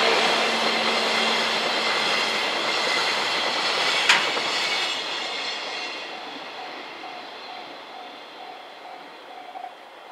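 A train running through a level crossing, its wheel and running noise fading steadily as it moves away, with one sharp click about four seconds in. As it fades, the crossing's warning bell comes through, ringing in an even pulse about two times a second, until it stops near the end.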